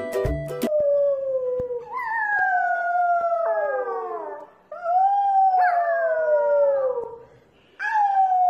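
Corgi puppy howling: three long howls, each sliding down in pitch, the first starting just under a second in and the third near the end. A snatch of music cuts off just before the first howl.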